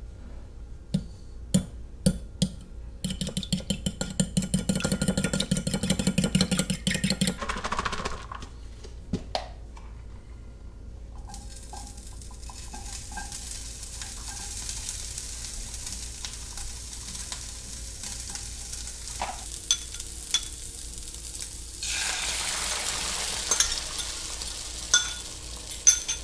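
Fork beating eggs in a ceramic bowl: a few taps, then a few seconds of rapid clinking. Then meat frying in a pan with a steady sizzle, which gets louder when the beaten eggs are poured into the hot pan, with a few knocks of utensils.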